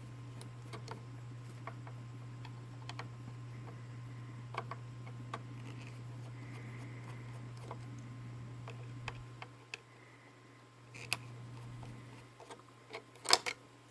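Light metallic clicks and taps from small metal parts of a toy steam engine being unscrewed and handled, over a steady low hum. A quick, louder clatter of clicks comes near the end.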